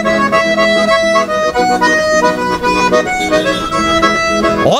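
Button accordion playing an instrumental vallenato melody in held, shifting notes, with an electric guitar accompanying.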